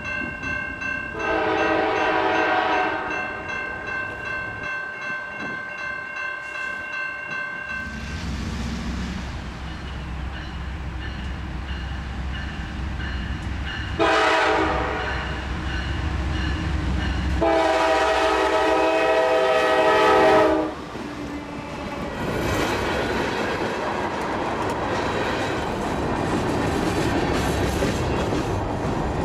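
Norfolk Southern freight train's diesel locomotive horn sounding several blasts, a long one early on, a short one mid-way and a long one of about three seconds later, over the deep rumble of the locomotive's engines. Then the freight cars roll past close by with a steady rattle and clatter of wheels on the rails.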